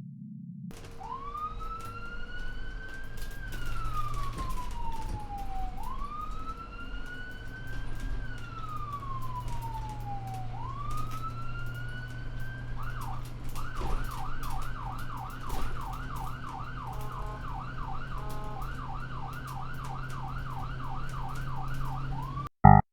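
Ambulance siren: three slow rising-and-falling wails, then a switch to a fast yelp of about three sweeps a second, over a steady low engine rumble. It cuts off suddenly near the end.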